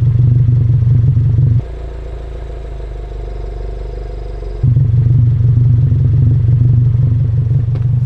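2022 Subaru WRX's 2.4-litre turbocharged flat-four idling steadily through an ETS axle-back muffler delete with resonators. It makes a low, even exhaust note with a little boxer rumble in it, kept faint by the car's equal-length headers. A bit under two seconds in the level drops for about three seconds, then the full note comes back.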